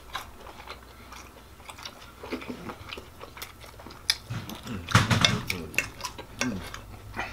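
Eating at a table: chewing and scattered small clicks of a knife and fork against a plate as steak is cut. A short murmured voice sound comes about halfway through.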